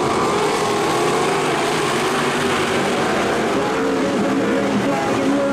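A pack of sprint cars' engines running together on the dirt oval, several engine notes overlapping, their pitch rising and falling as the cars accelerate and lift through the turns.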